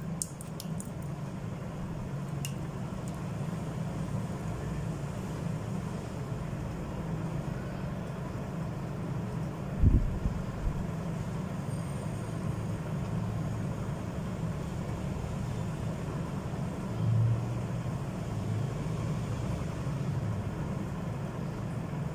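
Steady low background rumble, with one dull thump about ten seconds in.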